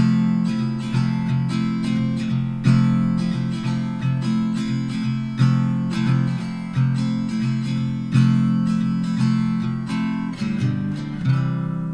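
Background music on acoustic guitar, picked and strummed, with a stronger strum about every second or so and the notes fading between strums.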